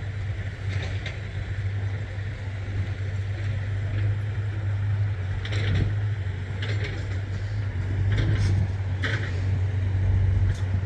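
A combine harvester's engine idles steadily with a deep, even hum, and a few short higher-pitched sounds come over it.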